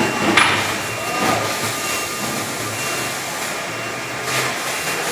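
Steady machinery noise with a low, pulsing hum, and a few short knocks or clanks, the loudest just after the start and another about four seconds in.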